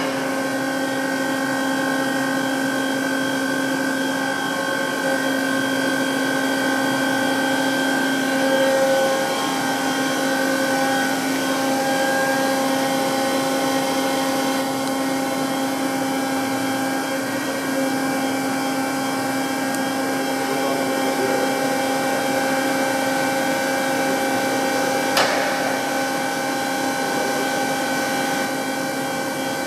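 1995 TOS Hostivar BUB 50 universal cylindrical grinder running under power: a steady mechanical hum with a whine above it, with one sharp click about 25 seconds in.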